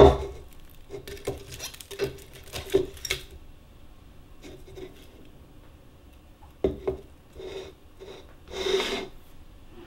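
Handling noises of small hard objects: a sharp knock, a quick run of light clicks and taps, a second knock, then a brief rustle or scrape near the end.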